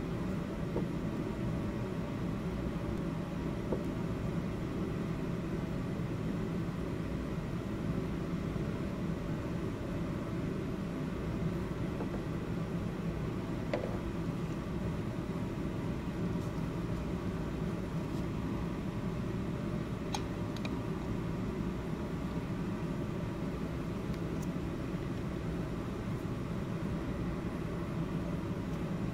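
Steady low mechanical hum with hiss, unchanging throughout, with a few faint clicks about 14 and 20 seconds in.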